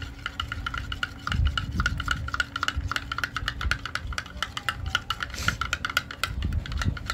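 Metal teaspoon stirring paint into slime in a glass dish, clicking and scraping against the glass in a quick run of light ringing ticks that stops near the end, over a low rumble.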